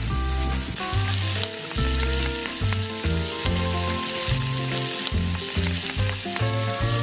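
Beef steaks searing and sizzling in a hot cast-iron skillet, with background music and a bass line underneath.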